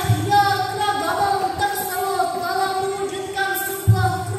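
A girl's voice over a microphone and loudspeaker, singing or chanting a drawn-out melodic line with long held notes and slow melismatic turns, as in a rehearsal of a Quran-competition performance. Two brief low thumps, one at the start and one about four seconds in.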